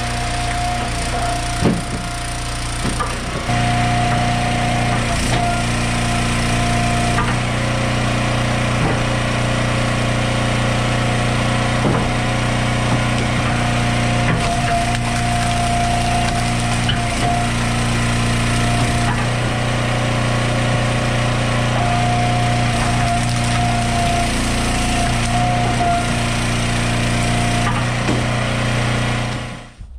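Gas engine of an Eastonmade Ultra wood splitter running steadily, its tone shifting every few seconds as the splitter cycles through the logs, with sharp cracks of firewood splitting and pieces dropping.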